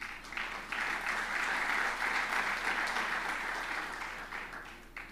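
Audience applauding: many hands clapping together, building up in the first second, holding steady, then thinning and dying away near the end.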